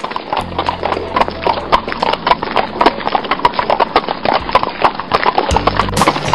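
Hooves of several horses clip-clopping at a walk on a dirt trail: a dense, uneven patter of sharp clicks.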